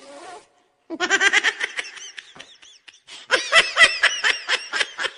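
A person laughing in rapid, high-pitched bursts: two bouts of laughter with a short pause between them.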